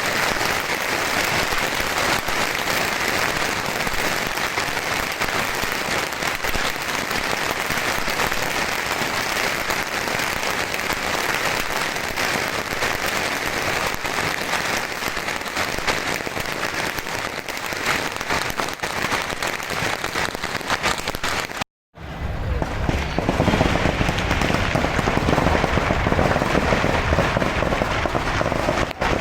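Massed bottle rockets firing from a Yanshui beehive fireworks fortress in a dense, unbroken crackle and hiss. It breaks off for an instant about three-quarters of the way through, then resumes louder with a deeper rumble.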